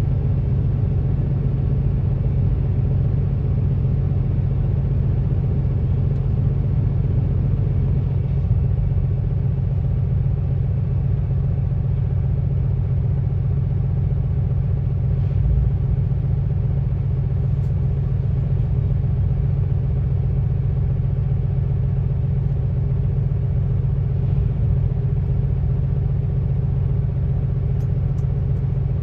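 Grain truck's diesel engine idling with a steady low rumble that does not change.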